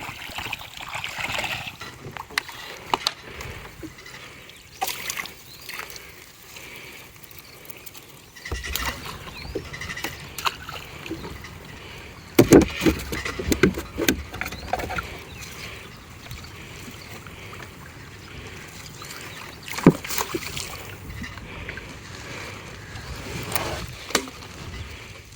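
Small boat on the water: irregular splashes and knocks over a low steady wash. The loudest run of splashes comes about twelve seconds in, with a single sharp knock near twenty seconds.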